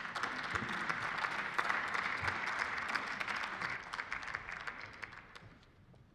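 Applause from members of parliament in their benches, a crackle of many hands clapping that dies away over the last two seconds.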